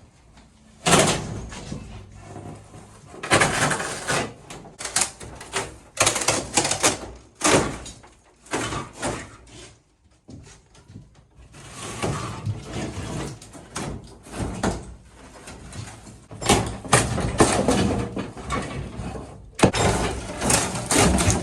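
Irregular knocks, bangs and scraping as the flashing strip above a caravan window is worked loose and pried off, in uneven bursts with short pauses between.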